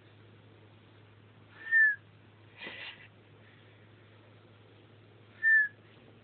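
A snoring man's whistling snore: two short, high, thin whistles, each falling slightly in pitch, about four seconds apart, with a softer breathy rasp between them.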